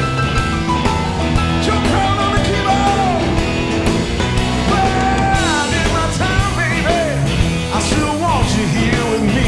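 Live blues-rock band playing, with an electric guitar solo of bent, sliding notes over drums and bass.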